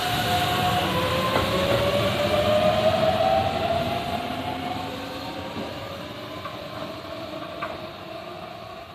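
Keihan Main Line electric train passing, its motors giving a rising whine over the rumble of the train. It fades away from about halfway through.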